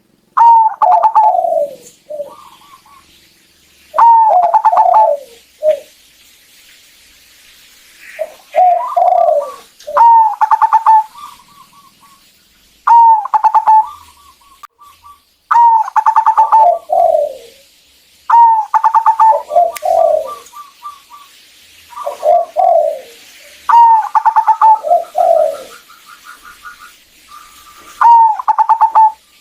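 Zebra doves (perkutut) cooing: about nine phrases, each a string of quick notes stepping down in pitch. After several phrases comes a run of short, rapid, higher notes.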